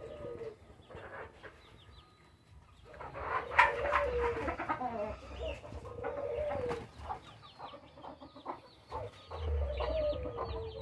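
Birds calling in a backyard aviary of doves and hens: several drawn-out, wavering calls a few seconds apart, with short high chirps in the second half.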